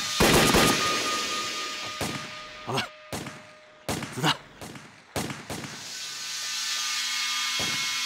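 Pistol gunfire: one loud shot right at the start, then more single shots spaced out over the next several seconds.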